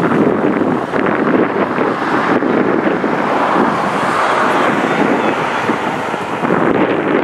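Gusting wind buffeting the microphone: a loud, steady rushing noise.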